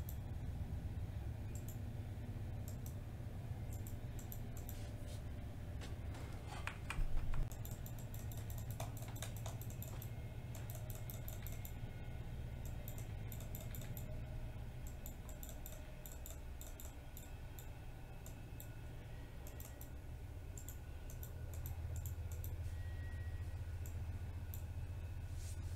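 Computer keyboard and mouse clicking in quick irregular clusters, over a steady low hum. One brief louder knock about seven seconds in.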